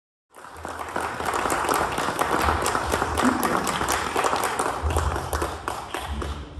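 Audience applauding: many hands clapping in a dense, steady patter that starts abruptly just after the beginning.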